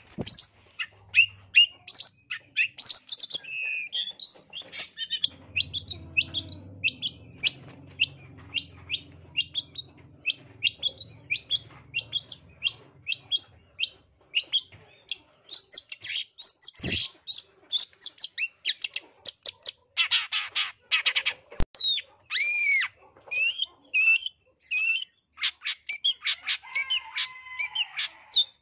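Long-tailed shrike (cendet) singing: a rapid run of short, sharp chirps, about three or four a second. About two-thirds of the way through the run breaks into a harsh rasping burst and a few down-slurred whistles.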